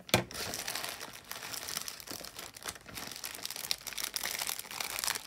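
Clear plastic bags of jewelry crinkling and rustling as they are handled, with small ticks of the pieces inside and one sharp click just after it begins.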